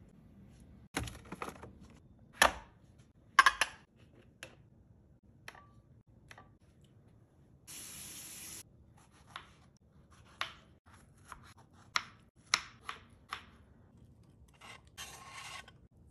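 Kitchen food-prep sounds: scattered knocks and clicks of containers and a knife on a wooden cutting board as strawberries are sliced. The loudest knocks come a few seconds in, a run of quick knife taps follows about halfway through, and two short hisses come about eight seconds in and near the end.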